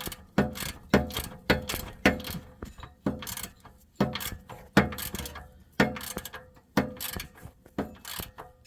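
Socket ratchet wrench being worked back and forth to tighten an exhaust clamp nut, its pawl clicking in repeated strokes about two a second.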